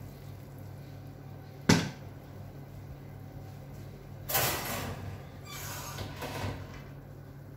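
A glass baking dish set down with one sharp knock, then the oven's wire rack slid back in with a metallic scrape and clatter, and the oven door swung shut.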